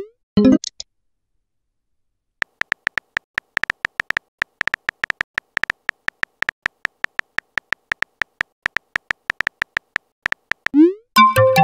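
Texting-app keyboard sound effects: a rapid run of short, high key clicks as a message is typed, pausing for a second or so early on. A rising swoosh and a pop of a message being sent open it, and near the end another rising swoosh is followed by a bright chime as the next message goes out.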